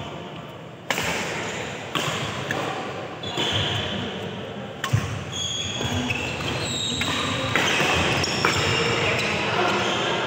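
A doubles badminton rally: a string of sharp racket hits on the shuttlecock at uneven spacing, echoing in a large hall, with short squeaks of shoes on the court in between.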